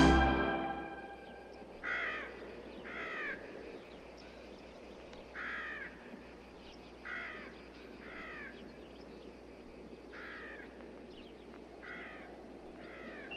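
Crow cawing, about eight short harsh caws, some single and some in pairs, a second or more apart, over a faint hiss. Orchestral brass music fades out in the first second.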